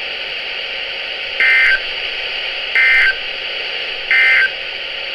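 NOAA Weather Radio's EAS end-of-message data signal: three short, identical, buzzy digital bursts about 1.3 seconds apart over steady radio hiss, marking the end of the alert message.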